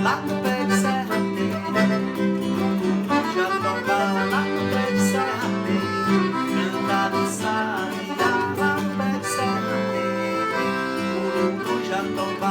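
Forró band playing an instrumental passage led by accordion, with guitar underneath and a steady beat of light percussive ticks.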